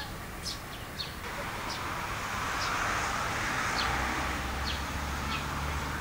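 Short high chirps of Eurasian tree sparrows, about one a second, over the noise of a passing vehicle that swells and fades through the middle, with a low rumble near the end.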